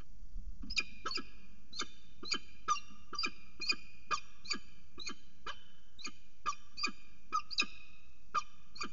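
Peregrine falcon calling at a food delivery: a run of short, harsh calls about two a second, starting just under a second in.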